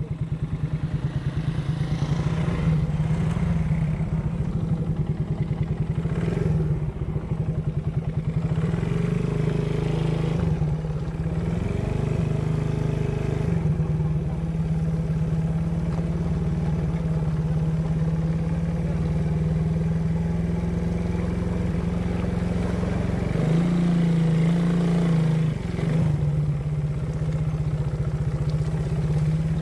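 Small motorcycle engine running steadily while riding, its pitch shifting a few times as the throttle changes, rising and getting louder near the end before dropping back.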